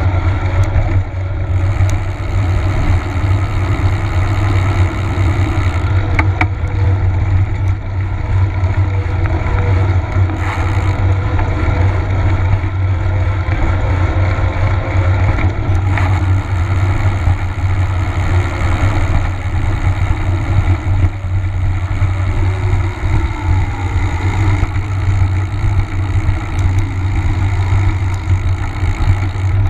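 Wind buffeting a bike-mounted action camera's microphone while riding, with tyre rumble on the asphalt. It is a loud, steady low rumble with no breaks.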